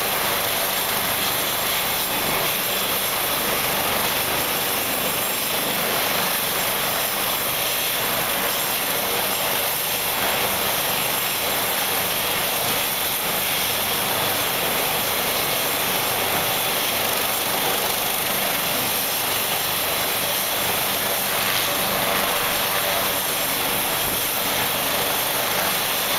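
AgustaWestland AW139 helicopter running on the ground with its rotor turning: a steady turbine whine and rush of air from its twin turboshaft engines that holds unchanged throughout.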